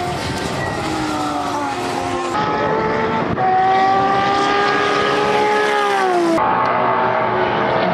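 Nissan Skyline touring car's inline-six racing engine running hard at high revs on track, its pitch sliding down about six seconds in as the car backs off. The sound changes abruptly twice, about two seconds in and again near the end.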